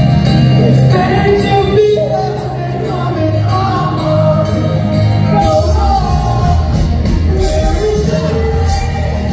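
Live band performance: a male lead singer sings a melodic line over electric guitar and a full band, heard through the concert PA.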